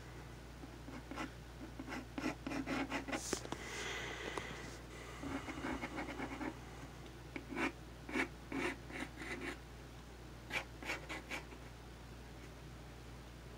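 Pencil scratching on paper while sketching: clusters of quick short strokes with pauses between them.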